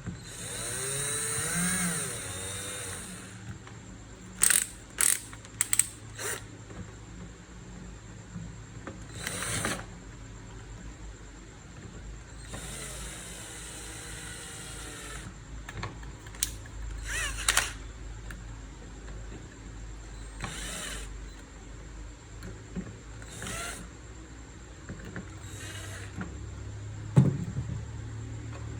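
Scraping and rubbing with a squeaky, warbling edge, then a quick run of sharp clicks, with further scrapes and a single sharp knock near the end.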